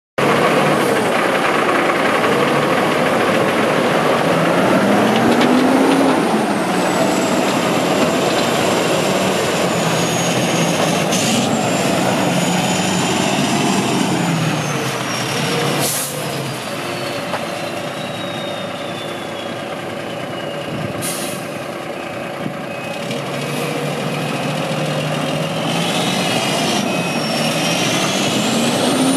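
International 9400i tandem-axle tractor's diesel engine running as the truck is driven off. Its pitch rises and falls several times as it pulls away, with a high whine that slowly falls in pitch. About three short hisses of the air brakes come in the middle.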